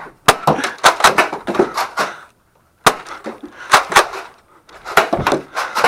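A rapid, irregular string of sharp cracks and knocks from Nerf blasters firing and foam rounds striking hard office surfaces, with a brief cut to silence just after two seconds.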